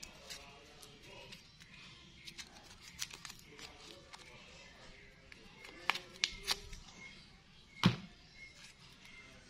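Crinkling, crackling and clicking of a bubble gum pack's cardboard box and paper wrapper being opened by hand, with one sharp thump near the end. Faint background music underneath.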